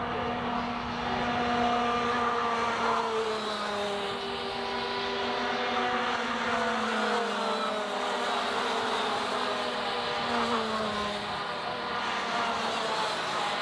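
Several racing go-kart engines running at high revs on the track, their overlapping whines rising and falling as the karts accelerate, brake and pass.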